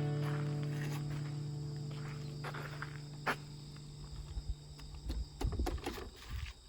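The last acoustic guitar chord ringing out and fading away over about five seconds, then outdoor sounds with scattered low thumps and clicks, like footsteps and handling. A faint steady high whine runs underneath.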